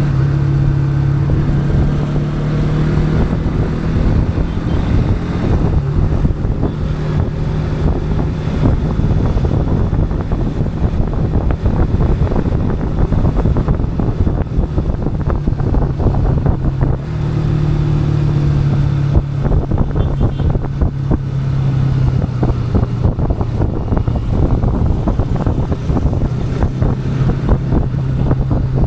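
Bajaj Pulsar NS200 motorcycle's single-cylinder engine running under way, with wind rushing over the onboard microphone. The engine holds a steady note at the start and again through the second half, and in the middle stretch it turns rough and uneven as the throttle changes through the curves.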